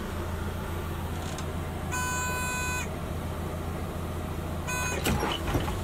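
Two electronic beeps, a longer one of almost a second about two seconds in and a short one near the end, over the steady low hum of the Hyundai County's idling engine heard from inside the cabin; a couple of light clicks follow the second beep.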